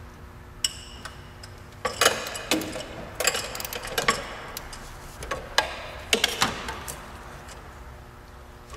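Hand socket ratchet clicking in short bursts as it turns a Tite-Reach extension wrench to work loose a rusted 11 mm heat-shield bolt, with metal clinks of the tool. One click comes about half a second in, then repeated runs of ratcheting until about two-thirds of the way through.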